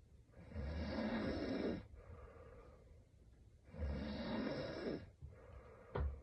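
A sleeping woman snoring: two long snoring breaths about three seconds apart, with quiet breathing between them and a brief sharp sound near the end.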